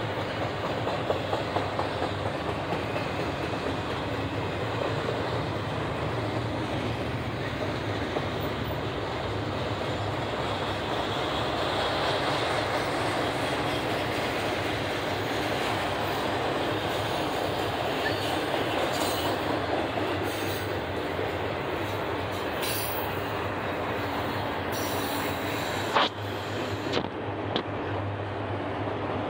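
Long doublestack intermodal freight train rolling past: a steady rumble of steel wheels on rail with scattered clicks, and one sharp knock near the end.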